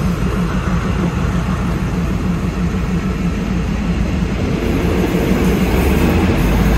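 Train running slowly along the track, heard from on board: a steady rumble with a fast rhythmic pulsing. A low hum grows louder near the end.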